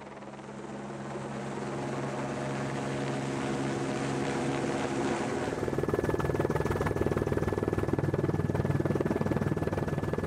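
Eurocopter AS350 B3 single-turbine helicopter in flight carrying an external load, its rotor and turbine running steadily and growing louder over the first two seconds. About six seconds in, the sound changes to a closer, fast-beating rotor sound with a thin turbine whine, as heard inside the cabin.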